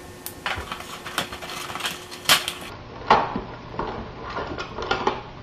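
A cardboard headphone box being cut open with a knife and its plastic packaging handled: a string of irregular clicks, scrapes and crinkles, with a faint steady electrical hum underneath.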